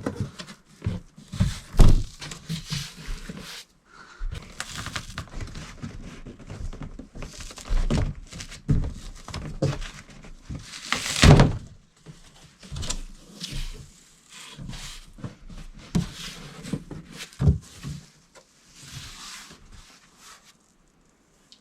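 Cardboard carton and packing being handled while a lawn mower is unpacked: rustling and scraping with irregular thuds and knocks. The loudest thuds come about two and eleven seconds in.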